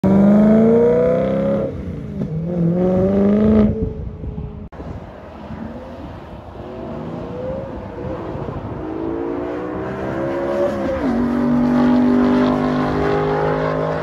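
BMW E92 M3 V8 accelerating hard through the gears. The engine note climbs steeply and drops at the upshifts about 1.7 and 3.7 seconds in, then comes back more distant as it pulls again and settles into a steadier note near the end.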